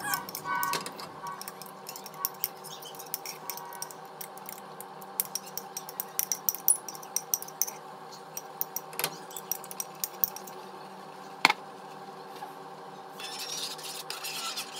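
A utensil clinking and tapping against a pan while seasoned ground beef is stirred, in scattered sharp clicks with two louder knocks, over a steady hum.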